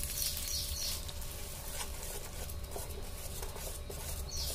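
Steel spoon stirring freshly poured tempering into coconut chutney in a steel bowl: faint, scattered clicks and light scrapes of the spoon against the bowl.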